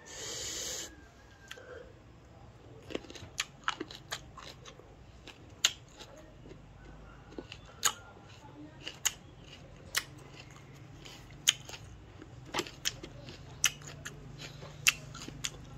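A person biting into and chewing a firm green plum: a crunchy bite in the first second, then a string of sharp, crisp crunches about once or twice a second as the flesh is chewed.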